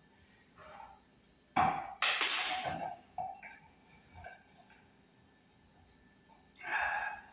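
Hand tool knocking and scraping against a wall outlet being worked open: a sharp knock about one and a half seconds in, then a rattling scrape, a few light clicks, and another short scrape near the end.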